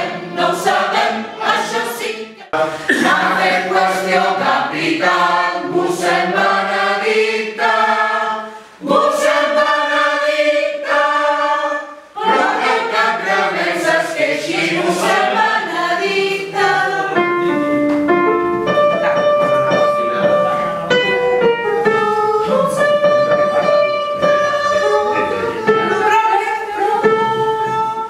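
Amateur mixed choir of men and women singing together in rehearsal, holding notes in chords, with a few short breaks between phrases.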